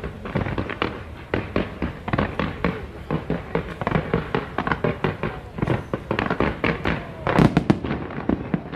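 A fireworks display going off in quick succession: a dense string of sharp cracks and bangs, with the loudest cluster of bangs near the end.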